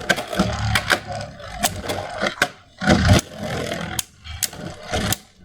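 Beyblade Burst spinning tops whirring and scraping around a plastic stadium, clashing with many sharp clacks.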